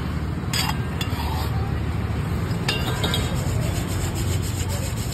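Roasted grain and hot sand rubbing and rattling in a clay sieve-pot as it is shaken over the roasting pot, sifting the sand from the sand-roasted grain. A few sharp clicks of clay knocking on clay come in the first three seconds.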